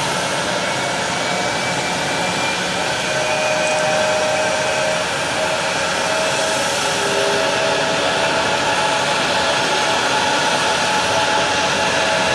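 Steady rushing noise with a high, even turbine whine from a parked Airbus A321 at the gate.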